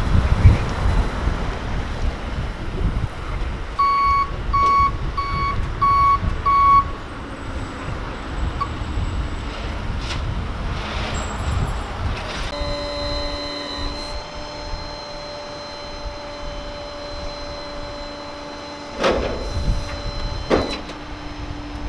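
A truck's reversing alarm beeps five times over about three seconds, above street traffic rumble. Later a steady hum of several held tones runs on, broken by two sharp knocks near the end.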